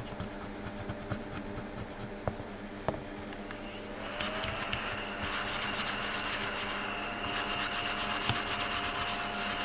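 Scratching at the coating of a scratch-off card with a small tool; about four seconds in, a small battery-powered desk vacuum starts and runs with a steady whine as it is moved over the card, picking up the scratched-off shavings.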